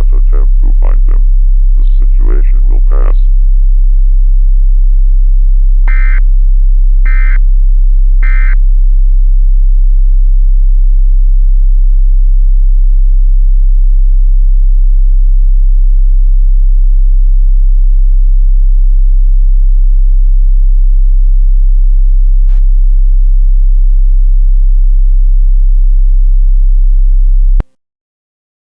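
A loud, steady low hum, with the end of a spoken alert message over it for the first few seconds. About six seconds in come three short, evenly spaced digital data bursts: the Emergency Alert System end-of-message (EOM) code. The hum then runs on and cuts off abruptly about a second before the end.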